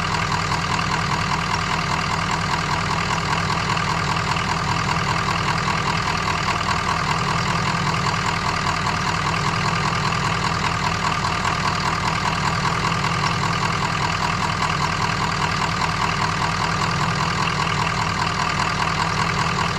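Diesel engine of a semi truck idling steadily, an even rapid clatter with no change in speed.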